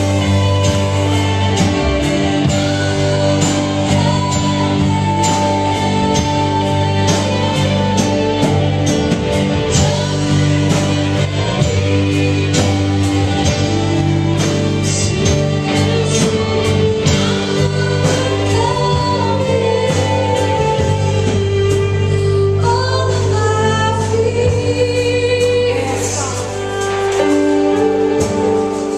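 Worship music: singing voices over a band with steady drum and cymbal hits. It softens briefly about three quarters of the way through.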